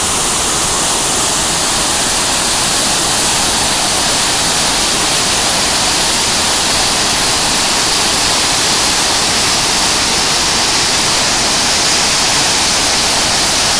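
Dhuandhar Falls on the Narmada River: a large volume of water plunging over rock into spray, a loud, steady rush of falling water.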